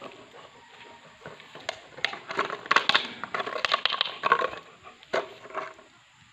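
A Belgian Malinois chewing an empty plastic bottle, the thin plastic crackling and crunching in its jaws in a quick, irregular run of sharp crackles that starts about a second and a half in and stops shortly before the end.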